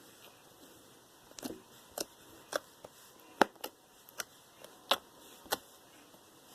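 Homemade slime being squeezed and poked by hand, giving a series of sharp, irregular clicks and pops, about eight in four seconds.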